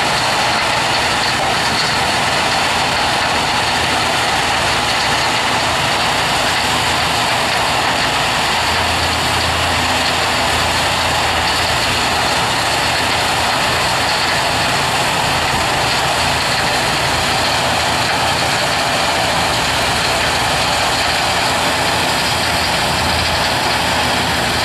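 Heavy diesel mining machinery running steadily: a Caterpillar excavator working beside a trommel gold wash plant, heard as one constant, loud mechanical noise.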